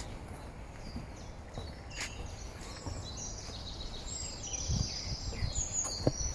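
Several songbirds singing and chirping at once, with many short high calls and quick gliding notes that grow busier in the second half. Underneath is a steady low rumble, with a couple of soft knocks near the end.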